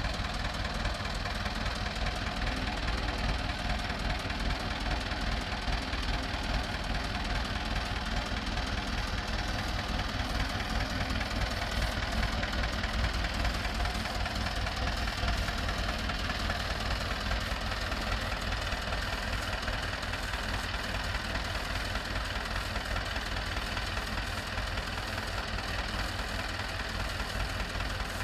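Ursus C-330 tractor's small two-cylinder diesel running steadily, a rapid even low chugging, while it powers a bale wrapper turning a round bale in film.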